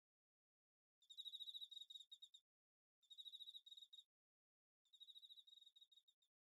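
Faint cricket chirping: three pulsed trills at one high pitch, each about a second long, with short pauses between them.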